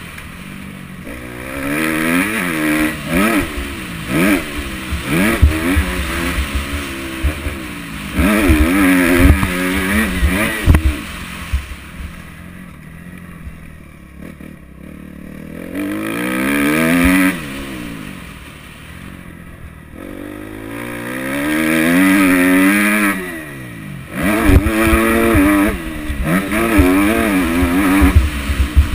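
A 2014 Kawasaki KX250F's single-cylinder four-stroke engine is revved up and let fall off again and again as the bike accelerates, shifts and backs off around a dirt motocross track. There are long rising pulls about halfway through and again later, a stretch near the middle where the throttle is eased off, and irregular low thumps throughout.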